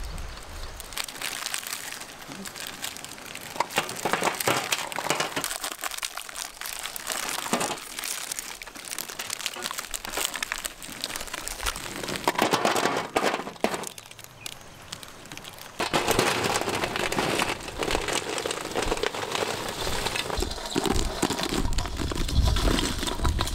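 Plastic biscuit wrappers crinkling and tearing as packets are opened, with hard biscuits clicking and clattering as they are tipped into a steel bowl.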